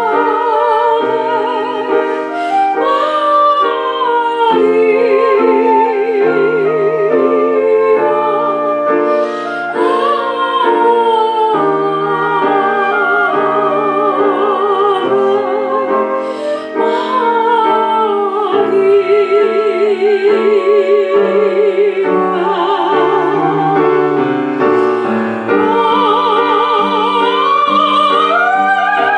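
Live acoustic music: a classical-style melody with wide vibrato over chord accompaniment.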